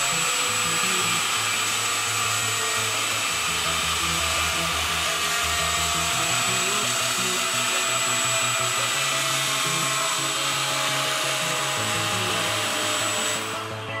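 Homemade electric ducted fan in a hair-dryer shell, driven by a 2450KV brushless motor, running at high speed with a steady rushing whine and a high whistle. It cuts off shortly before the end.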